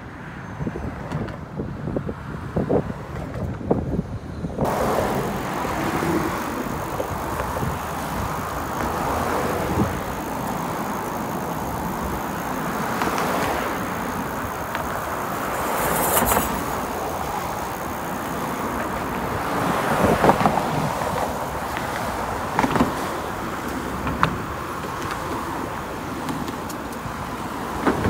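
Road traffic on the bridge deck: cars driving past close by, a steady tyre and engine noise. It starts abruptly about four and a half seconds in and swells as individual cars pass.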